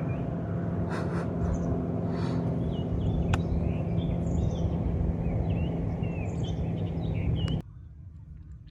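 Many small birds chirping and calling over and over, several kinds at once, over a steady low motor hum. A couple of sharp clicks sound about one and three seconds in, and the hum cuts off suddenly near the end.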